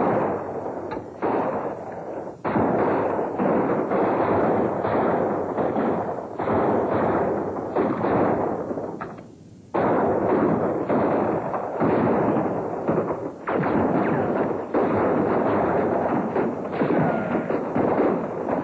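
Fire crackling loudly with rapid pops and bangs, the sound of wooden buildings burning. It breaks off briefly about nine seconds in, then resumes.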